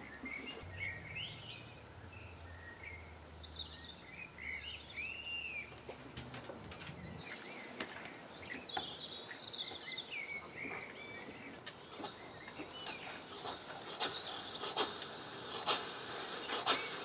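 Birds chirping faintly with a low hum at first; then, about two-thirds of the way through, a model beam engine starts running on compressed air: a hiss with sharp exhaust clicks that come quicker and louder toward the end.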